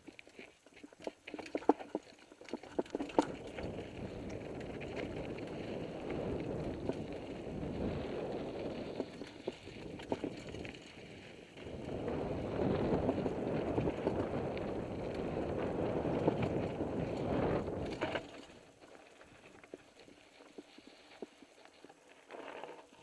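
Mountain bike riding down a rocky trail: sharp rattles and knocks as it goes over rocks, then a steady rush of tyres on dirt and gravel with wind, which dies down about three-quarters of the way through.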